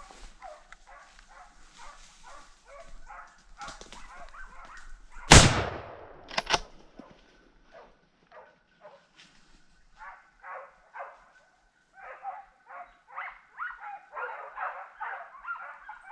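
Hunting dogs barking on a wild boar, with two gunshots about a second apart about five seconds in. The first shot is the loudest sound and rings on briefly, and the barking grows busier towards the end.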